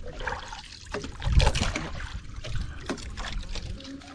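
Irregular knocks and scrapes on a small fishing boat as a handline is hauled in by hand over the side.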